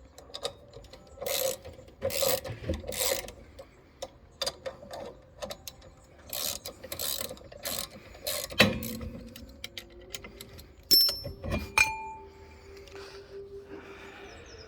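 Ratchet wrench clicking in short bursts as it turns jacking bolts to force a stuck brake drum off its shoes. Then come two sharp metallic clanks, the second ringing briefly.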